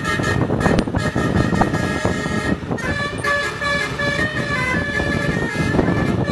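Dua Putra bus's Basuri 'telolet' multi-tone air horn playing a tune of held notes that shift to new pitches about three seconds in, over a steady low rumble.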